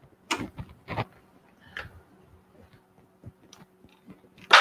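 A few light knocks and clicks of kitchen items being handled, the clearest two about a second apart near the start, over a faint steady appliance hum.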